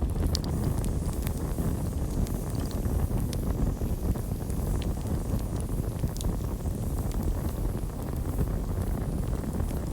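Campfire burning: a steady low rumble with scattered sharp crackles and pops of burning wood.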